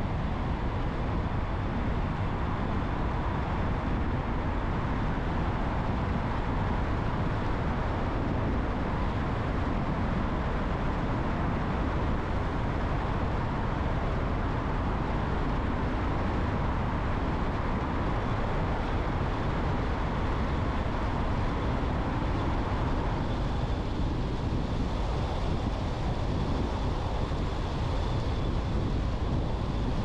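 A car driving along at a steady speed: even tyre and wind noise.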